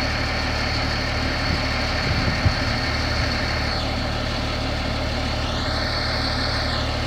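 Heavy diesel engine idling steadily, with a constant high whine over the low rumble. Near the end another whine rises and falls for a second or so.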